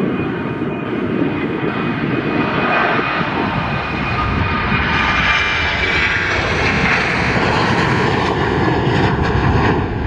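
Boeing 737 jet engines at full takeoff thrust as the airliner lifts off and climbs away: a steady, loud roar with a thin whine running through it.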